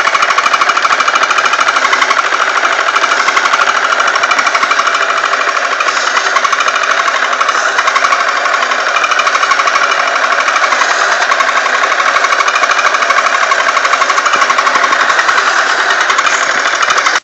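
Real Power Workshop toy disc sander running steadily: a small battery motor with a fast buzzing rattle, the spinning disc smoothing a cut piece of material.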